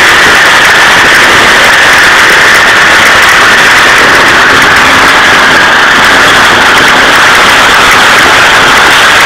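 Homemade outboard motor built from a lawnmower engine running steadily on its test, so loud close up that it overloads the recording.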